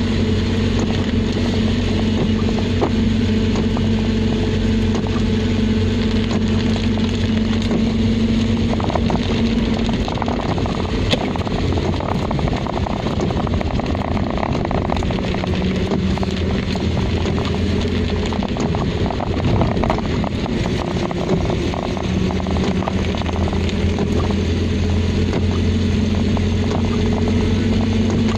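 Car engine running steadily while driving, heard from inside the cabin, its note dropping about a third of the way in and rising again near the end. Under it, an even hiss of tyres and rain on the wet road.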